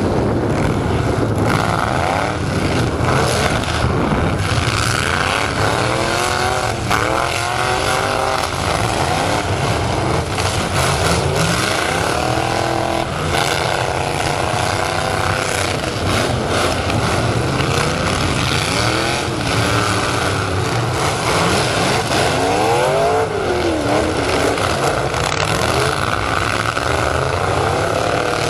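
Several demolition-derby trucks' engines running hard, revving up and down, some rising and falling in pitch, with scattered knocks of the trucks hitting one another.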